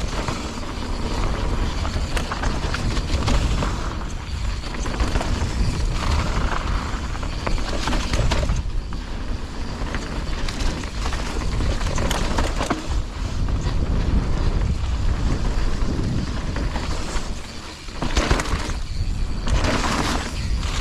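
Mountain bike rolling down a dirt trail, the tyres running over the ground and the bike rattling and knocking over bumps, under heavy wind buffeting on the helmet-camera microphone. The noise eases briefly near the end.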